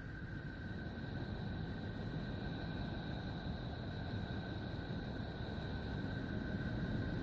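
"Outer space" ambience sound effect for the planet Neptune: a steady low rumble with two thin, steady high tones held above it, slowly growing louder.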